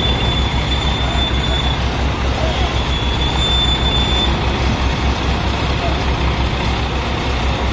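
Heavy mobile crane's diesel engine running steadily with a regular low throb during a lorry recovery. A thin, high, steady whine sounds over it through the first half and then stops.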